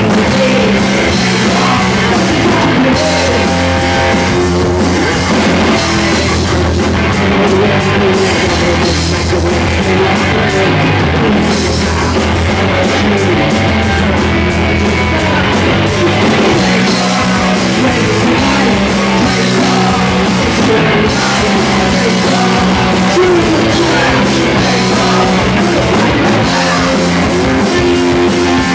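A rock band playing live: guitar and drum kit at a steady loud level, with sustained low notes underneath.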